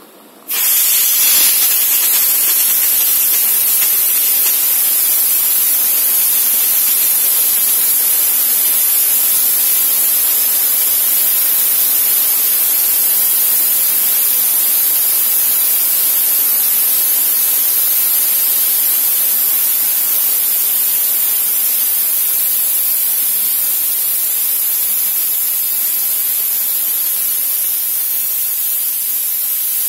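Sino Star SS JNX 2400 steam washer's spray gun blasting a jet of steam: a loud, steady high hiss that starts abruptly about half a second in and runs on unbroken.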